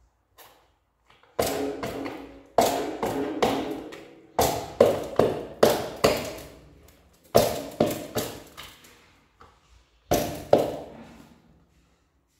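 Repeated sharp knocks on a hard object that rings after each strike. They come in clusters of one to five blows spaced about a third of a second apart, with pauses of about a second between clusters.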